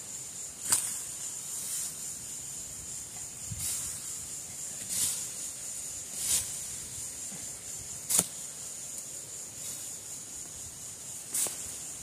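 Small shovel chopping into dry dirt while a hole is dug: several sharp strikes spread a second or more apart, the loudest about a second in and again about eight seconds in. A steady high insect buzz runs underneath.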